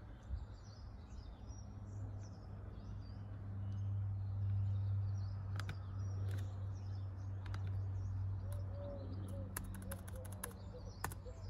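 Small birds chirping here and there over a steady low hum that swells a little around the middle; a quick run of clicks near the end.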